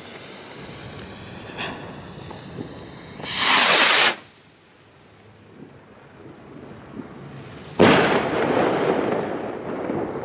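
Funke Kometenschauer 20-gram firework rockets: a loud rushing whoosh lasting about a second that cuts off abruptly, then about four seconds later a sharp bang that rolls on in a long echo with scattered crackling.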